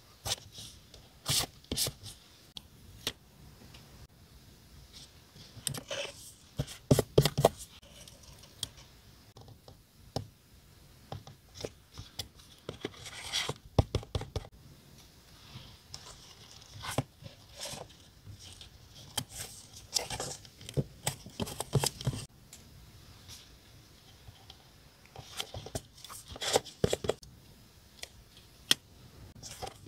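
Paper stickers and labels being handled close up: irregular rustling, peeling and light tapping with scattered sharp clicks, in clusters with short pauses between.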